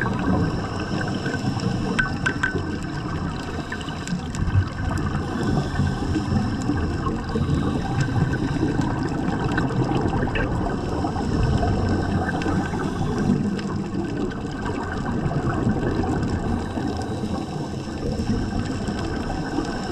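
Underwater sound picked up by a camera on a night scuba dive: a steady, muffled water rumble with gurgling and scattered faint clicks.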